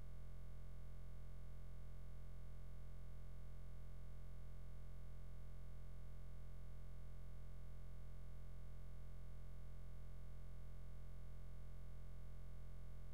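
Steady low hum with several fixed overtones above it, unchanging, with no other sound.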